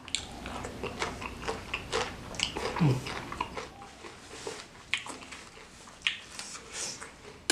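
Close-miked chewing of a mouthful of raw green bird's eye chilies, with many short crunches and wet mouth sounds. About three seconds in comes a short, low vocal hum that falls in pitch, the eater reacting to the chili heat.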